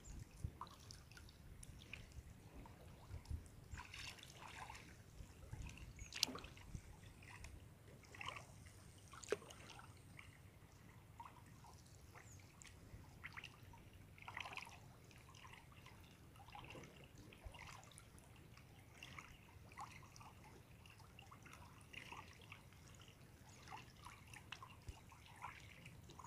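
Faint water sounds: small splashes and dribbles scattered throughout as people wade and work their hands in shallow water.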